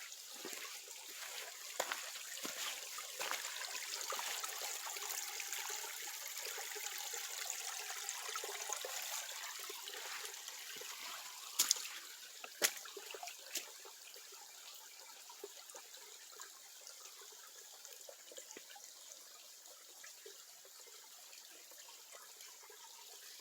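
Running brook water, louder in the first half and then fading, with three sharp clicks about halfway through.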